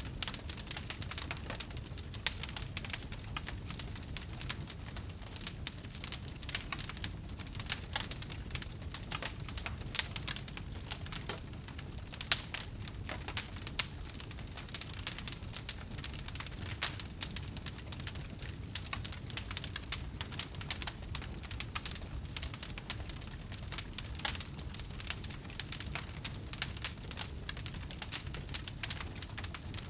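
Wood bonfire crackling, with many small irregular pops of burning wood over a low steady rumble.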